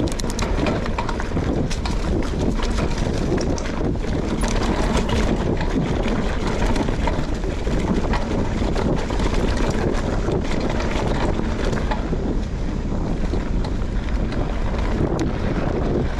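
Wind rushing over a GoPro's microphone as a mountain bike is ridden along the trail, with a dense clatter of small knocks and rattles from the bike over the ground.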